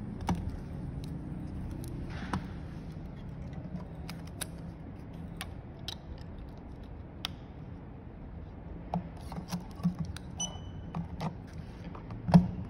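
Small clicks and taps of a replacement phone screen's flex cable being handled and plugged into a screen tester's connector, over a low steady hum. A short high beep comes about ten seconds in, and a sharper knock near the end.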